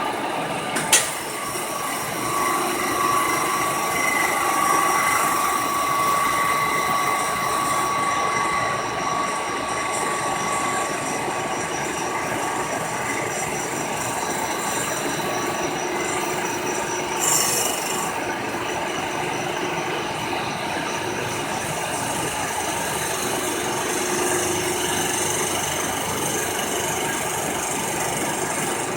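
Milling machine running a fly cutter across an intake manifold's face: a steady machining noise with high whining tones, a sharp click about a second in and a short louder burst a little past the middle.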